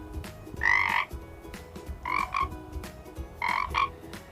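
Frog croaking: three calls about a second and a half apart, each a short double note.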